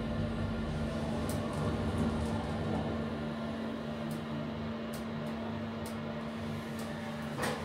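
Elevator cab travelling up its shaft: a steady machine hum with a constant low tone, a few faint clicks, and a sharper click near the end.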